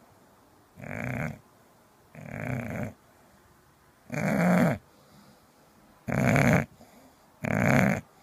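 English bulldog snoring in its sleep: five rhythmic snores, one every second and a half to two seconds, the later ones louder.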